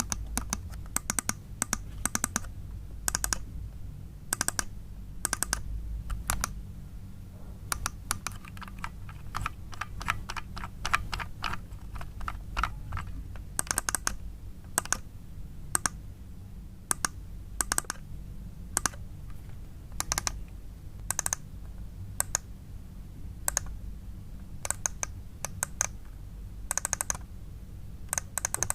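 Computer mouse buttons clicking at an irregular pace, many clicks in quick pairs, with now and then a quick run of ticks from the scroll wheel. A low hum sits underneath.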